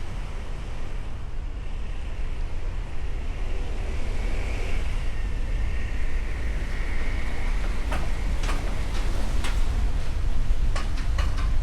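Steady low rumble of road traffic, with a faint high tone in the middle and several sharp clicks in the last few seconds.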